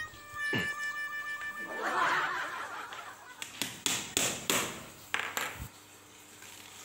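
Claw hammer tapping a nail through a wooden stick into an MDF board: a quick run of about eight light, sharp blows a little past halfway, setting the second nail of a homemade stick-and-nail hole cutter.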